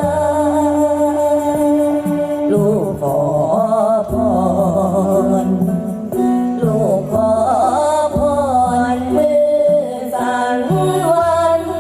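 Music with a woman singing a wavering, ornamented melody over steady held notes.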